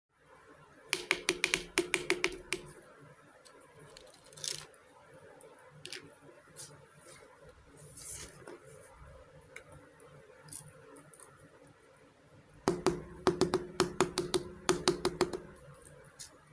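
Small hard toy pieces of a miniature kitchen set clicking and rattling as they are handled, in two quick runs of sharp clicks, about seven a second, with light rustling and taps in between.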